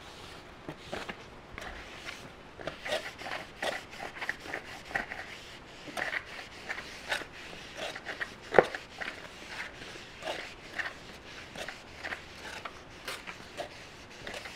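Cloth rag rubbing the face of a new brake rotor with acetone, an irregular scrubbing and rustling of short strokes, cleaning off the rotor's protective oil coating. One sharper knock comes about eight and a half seconds in.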